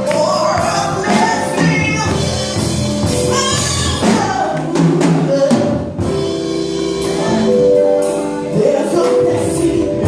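Gospel worship music: voices singing, with a band's drums and tambourine keeping time.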